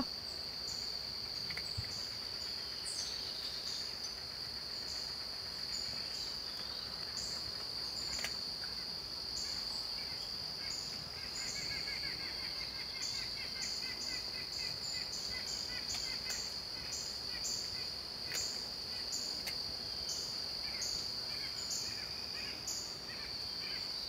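Outdoor ambience through a security camera's microphone: a steady high-pitched whine over hiss, with faint short ticks recurring throughout. Near the middle a faint rapid trill comes and goes.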